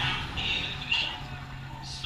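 Distant stock-car engines droning steadily on the dirt oval, under a muffled higher-pitched sound that comes and goes.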